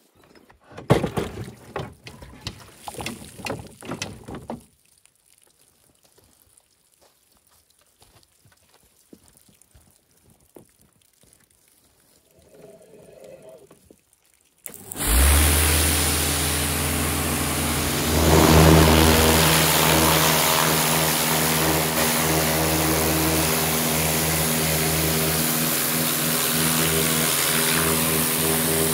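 A few seconds of knocking and rattling, then a pressure washer starts suddenly about fifteen seconds in and runs steadily: a motor hum under a strong hissing spray, growing louder a few seconds after it starts.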